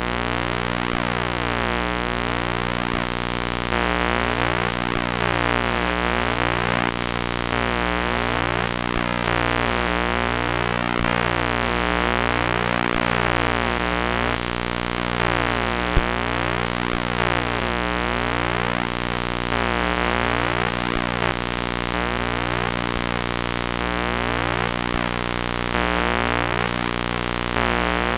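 Harsh electronic buzzing drone of many stacked tones, whose low pitches step and shift in a repeating pattern over a steady hiss. A single sharp click comes about sixteen seconds in.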